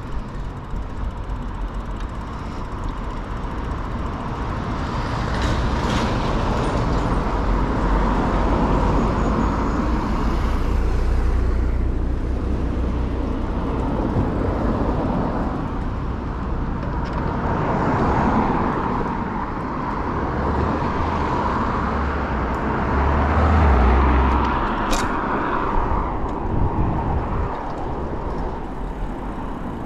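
Road traffic heard from a moving bicycle: vehicles going past in several slow swells over a steady low rumble, with one sharp click near the end.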